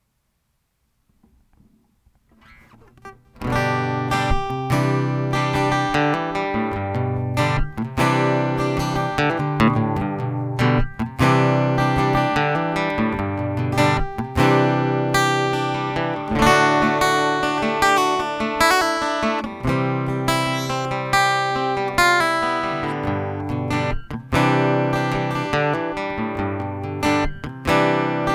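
Ibanez EW20ZWE acoustic-electric guitar played plugged in, its sound taken from the B-Band under-saddle pickup and SRTc preamp: strummed and picked chords. It starts about three seconds in after a short quiet lead-in, then rings steadily throughout.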